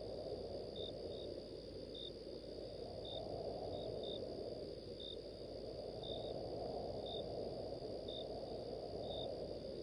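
Night ambience sound effect: crickets chirping in short chirps of the same pitch, one or two a second, over a steady low rumble.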